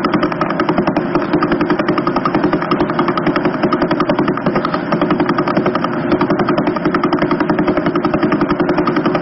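Sonified space recording, the kind of radio or plasma-wave data from space made audible: a steady, rapidly pulsing buzzing drone with several pulses a second.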